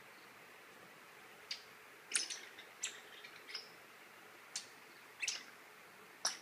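Papillon puppy making short, high-pitched squeaks at irregular intervals during play, about eight in all.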